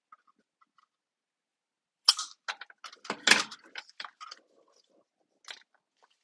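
Scissors snipping through heat-shrink tubing: a cluster of crisp snips and clicks from about two to four and a half seconds in, then one more short click near the end.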